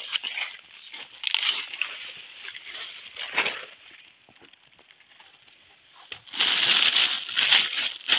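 Footsteps brushing through undergrowth and dry leaf litter, then from about six seconds in, a clear plastic bag rustling and crinkling loudly as it is handled.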